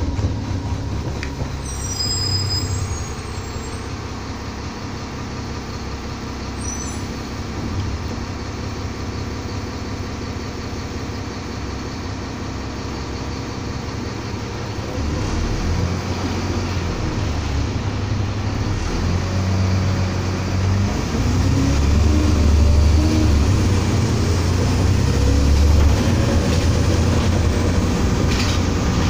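Alexander ALX400 double-decker bus heard from inside the lower deck while under way: steady engine and road rumble, with a few brief high squeaks in the first seconds. From about halfway through the engine pulls harder and louder, its pitch rising and falling as the bus accelerates.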